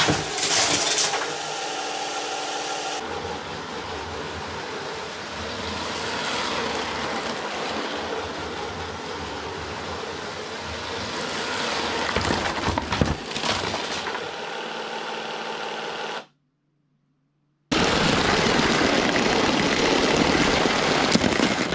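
Small electric motors of a motorized brick-built model train whirring as it runs on plastic track, with its wheels rattling over the rails and a few clicks about two-thirds of the way through. The sound cuts out for about a second and a half, then comes back louder, close to the train.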